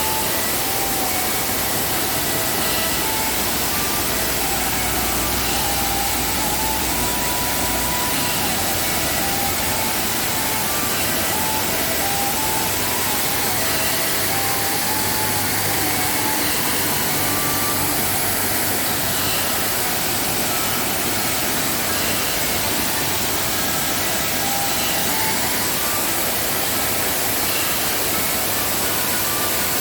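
Waterfall in heavy rainy-season flow: a steady, loud rush of falling water.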